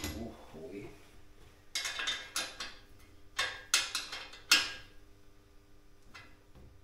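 Hands working the tyre on a Helkama Jopo bicycle's front wheel: a quick run of sharp scrapes and clicks of rubber and metal rim, between about two and five seconds in.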